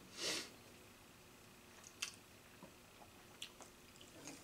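A person breathes out once, a short breathy puff just after the start, followed by a few faint small clicks in an otherwise quiet room.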